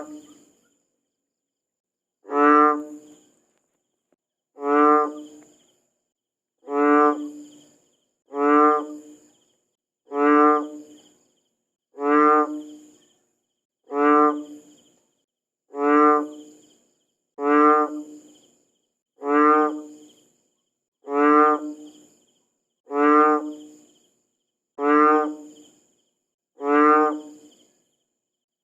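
A frog croaking over and over: one short, rattling croak made of rapid pulses about every two seconds, fourteen times, with silence between.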